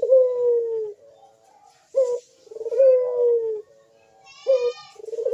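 Barbary dove (burung puter) cooing loudly. Each phrase is a short note followed by a long coo that falls in pitch, and the phrase repeats about three times. This is the dove's full call, used as a lure to bring in other doves.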